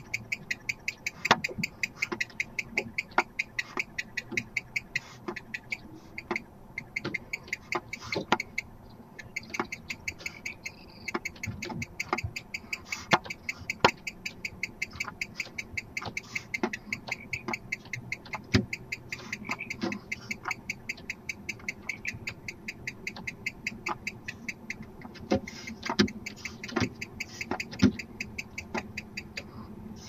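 Barn owls clicking: a fast, unbroken run of sharp ticks with louder single clicks scattered through it.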